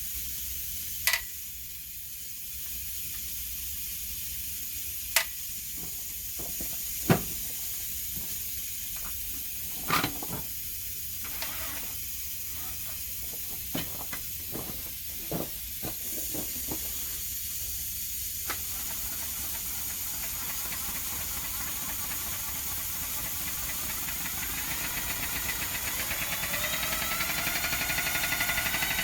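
Sharp metallic clicks and knocks, a few loud ones and then a run of small ticks, while the camshaft of a Ford 2.9 V6 is turned over against freshly fitted lifters to rub a wear pattern into Sharpie marks. A steady hiss sits underneath, and a rising whine comes in near the end.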